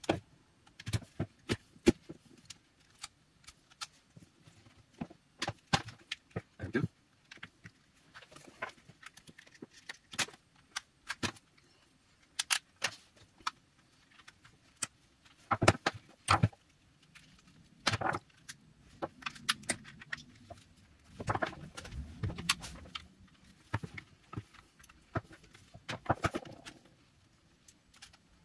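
Irregular sharp clicks and snaps of a utility knife blade and pry tools working the seam of a plastic power bank case to crack it open, with a denser stretch of scraping about two-thirds of the way through.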